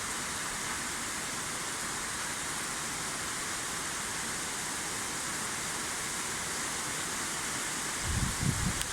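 Heavy rain falling steadily, an even hiss with no let-up; a few short low thumps near the end.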